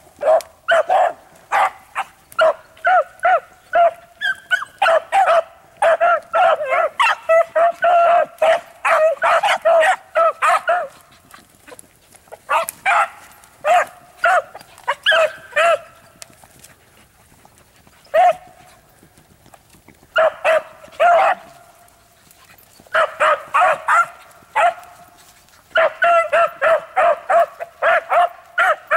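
Pack of beagles barking and yipping in quick strings of barks, bout after bout, with short pauses, the longest a little past halfway. This is hounds giving tongue as they run a rabbit's scent trail.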